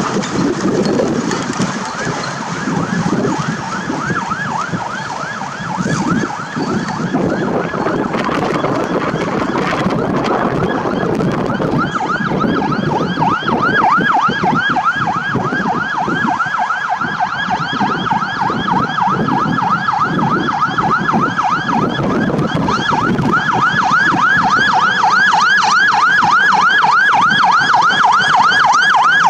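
Fire truck's siren on a fast yelp, several rapid up-and-down sweeps a second, growing louder as the Scania G480 heavy rescue truck approaches on an emergency run. Truck engine and road noise rumble underneath.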